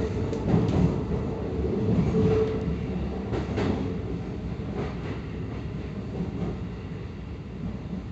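Low train rumble with scattered knocks, heard from aboard a Keikyu 1000 series car and fading steadily.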